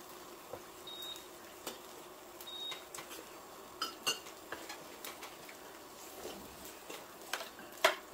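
Metal spoons scraping and clinking against a stainless steel pan and bowls of fried rice: scattered, irregular clinks, the loudest near the end.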